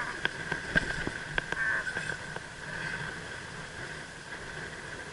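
A quick, irregular run of sharp clicks and knocks over the first couple of seconds while the spinning rod is bent on a fish striking the lure, over steady wind and water noise.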